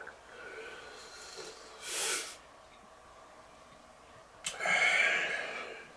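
A man breathing hard against the burn of an extremely hot sauce: a short sniff or snort about two seconds in, then a longer, louder breath pushed out through the mouth near the end.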